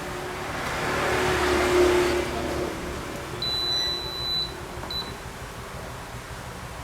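A single high electronic beep held for about a second near the middle, then a short second blip, after a brief swell of rushing noise.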